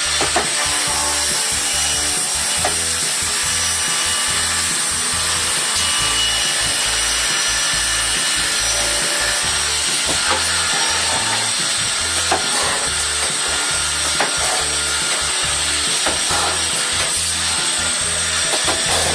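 CNC boring center for woodworking running, its drill spindles boring into wood panels, with a steady high-pitched whine over continuous cutting noise.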